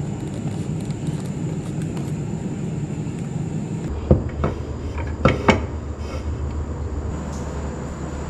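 Steady low rumble of background noise, with four sharp knocks about halfway through, spread over a second and a half.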